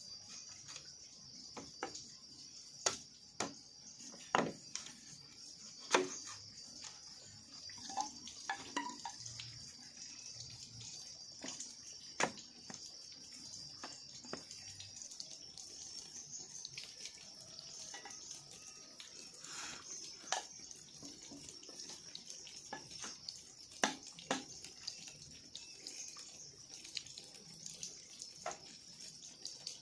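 Scattered hollow knocks and taps of green bamboo poles and crosspieces being handled and fitted together, over a steady high-pitched hiss.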